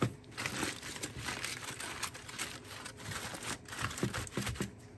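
Aluminum foil crinkling and rustling as it is pulled open and folded back by gloved hands, in quick irregular rustles.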